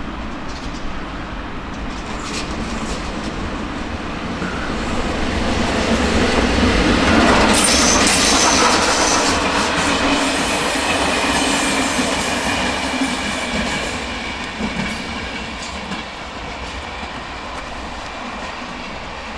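A train passing close by, growing louder to a peak about seven to nine seconds in and then fading, with wheels clattering over the rail joints and a high wheel squeal as it goes by.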